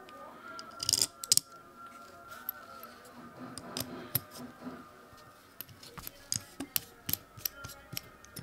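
Light clicks and clinks of small hex screws being picked from a pile and set into a carbon-fibre drone frame, loudest about a second in. Then a run of quick ticks as a 2 mm hex driver turns the screws in.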